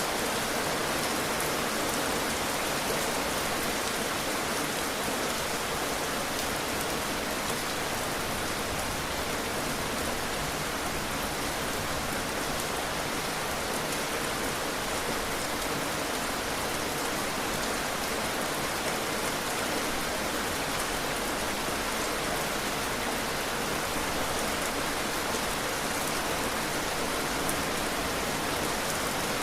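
Heavy rain falling steadily on a surface: an even, unbroken hiss.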